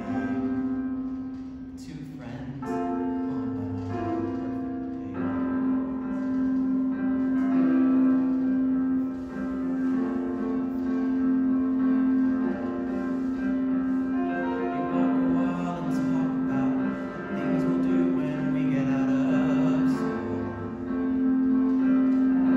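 Music: a teenage boy singing a musical-theatre ballad solo over instrumental accompaniment.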